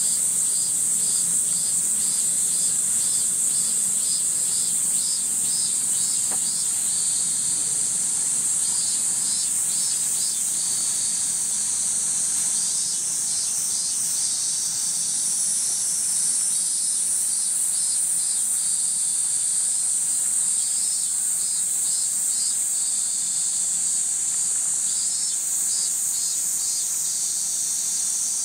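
Chorus of cicadas: a steady, high-pitched shrill drone, with bouts of rapid pulsing chirps a little lower in pitch repeating over it.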